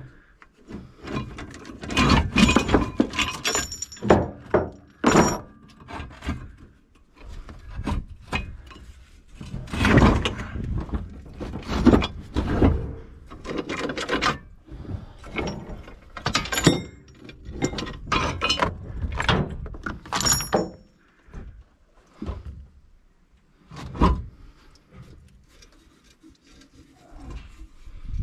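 Rusty scrap steel, brake rotors and a chain, clanking and knocking at irregular intervals as it is shifted and a ratchet strap is hooked to it in a vehicle's cargo bed, a few of the knocks ringing briefly.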